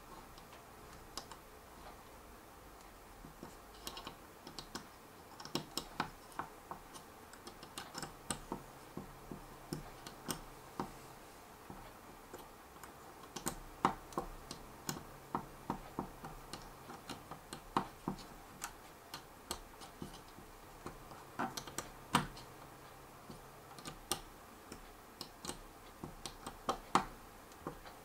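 Irregular sharp clicks and ticks, in quick runs with short pauses, from a small hand screwdriver driving screws through plastic prop-guard mounts into a DJI Phantom 3's plastic motor arm.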